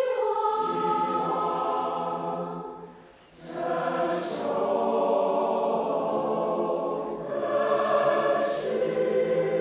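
A choir singing a slow song in long held notes. The singing breaks off briefly about three seconds in, then resumes.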